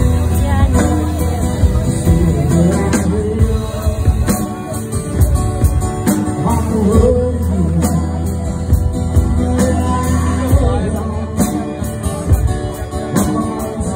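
A live acoustic guitar and drum kit playing a slow rock song together, amplified through a PA, with the drums keeping a steady beat under the guitar.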